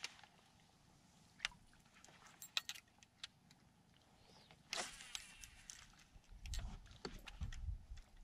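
Scattered small clicks and light rattles of fishing tackle being handled aboard a bass boat, with a low rumble near the end.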